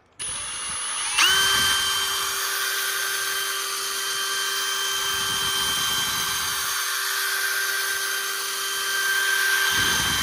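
Ryobi brushless cordless drill spinning a foam buffing pad against an acrylic aquarium panel to polish it with cutting compound. It starts at a lower speed, climbs to full speed about a second in, and then runs with a steady whine.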